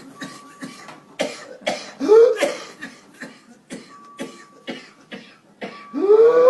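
A person coughing in rapid fits of short, sharp coughs. About two seconds in and again near the end, a fit ends in a drawn-out sound that rises in pitch.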